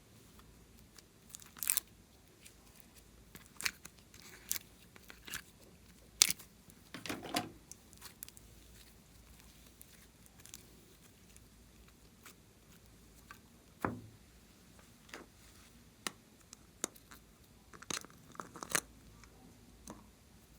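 Slime being squished and mixed by hand: irregular sticky clicks, crackles and pops, spread out with quiet stretches between.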